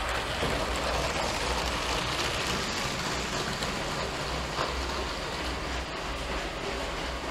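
Battery-powered LEGO train running round a plastic track: a steady motor hum with the rolling rattle of plastic wheels on the rails, easing slightly as the train moves away.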